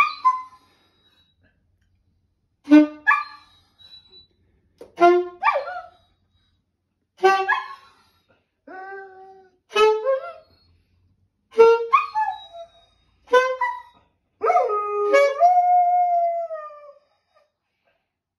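Alto saxophone playing short notes about every two seconds, with a hound dog howling along to each, ending in a longer howl that slides down in pitch.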